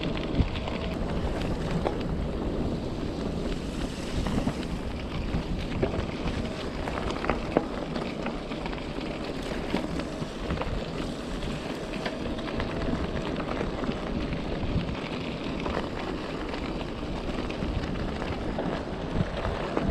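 Wind buffeting the microphone and tyre rumble while riding an e-bike along a rough track, with occasional short knocks from bumps and a faint steady whine.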